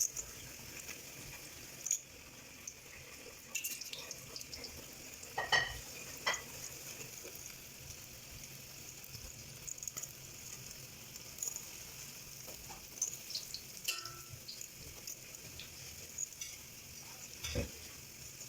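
Glutinous rice patties frying in hot oil in a wok: a steady sizzle, with a few short knocks of a utensil against the pan.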